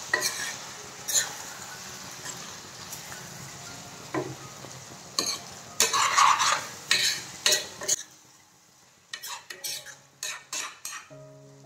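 Chicken masala sizzling in a kadai while a steel spatula scrapes and clatters against the pan as it is stirred. About eight seconds in the sizzle falls away, and the scraping strokes go on.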